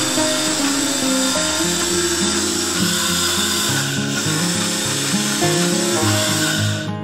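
Electric mixer grinder's motor running steadily at speed, dry-grinding the ingredients in its jar, then cutting off abruptly near the end. Background music plays throughout.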